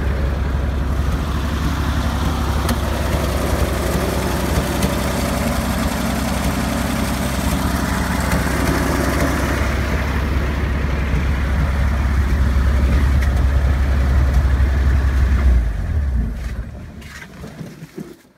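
1956 Willys jeep's engine idling steadily with a deep rumble, then stopping near the end and running down over a couple of seconds.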